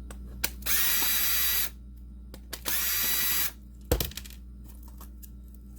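Cordless power driver running twice, about a second each time, backing out the screws to open a video game cartridge, followed by a sharp click.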